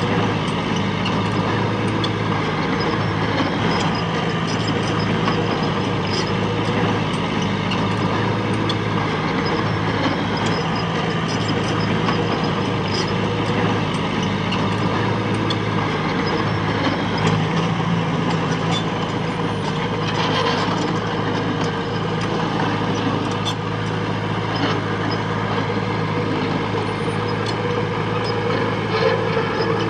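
Heavy diesel engine running steadily at a constant pitch, with scattered light clanks and knocks over it.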